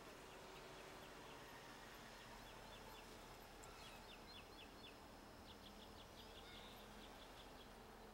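Near silence: faint outdoor ambience with quiet, high chirps repeated in short runs through the middle.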